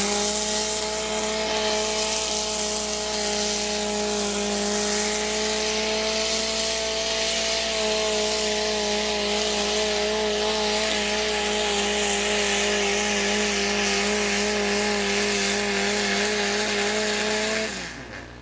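Modified pulling tractor's engine held at full throttle as it drags the weight sled down the dirt track: a steady, high-revving note with a slight waver, over a rush of noise from the tyres and dirt. It drops away and cuts off near the end.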